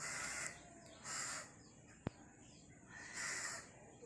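A crow cawing three times, each harsh call about half a second long, with a single sharp click about two seconds in.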